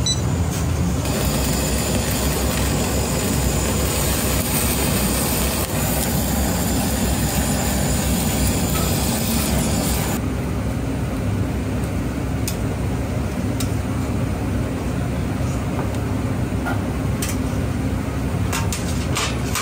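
Steady low rumble of a ramen-shop kitchen, with a high hiss over it that stops suddenly about ten seconds in, then a few light clicks and knocks near the end.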